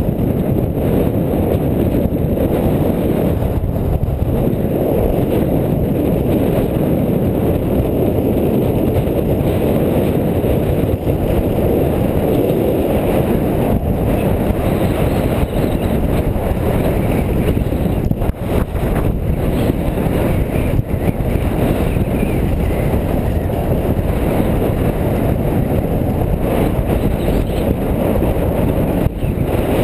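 Steady rushing wind on a body-worn action camera's microphone, mixed with the continuous scrape and rumble of skis running over groomed snow on a downhill run.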